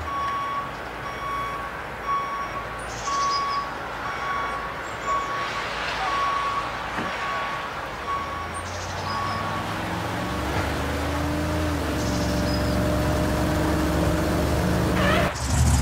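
A truck's reversing alarm beeping steadily, about two beeps a second, with a few short hisses. It stops about ten seconds in, and a truck engine starts running, its pitch slowly rising.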